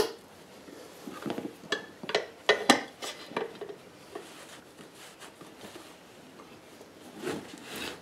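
Steel hand tools clinking and knocking against a steel wheel rim as locking pliers are moved along the rim edge and a tire spoon is worked in to lever a lawn tractor tire bead onto the rim. A scatter of short, sharp metallic clicks, the loudest about two and a half seconds in.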